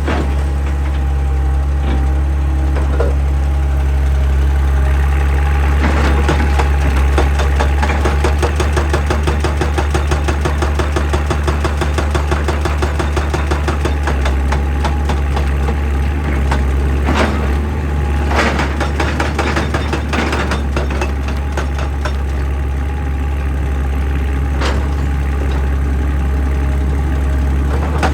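Excavator's diesel engine running with a hydraulic rock breaker hammering in a fast, steady rattle, with a few louder clanks along the way.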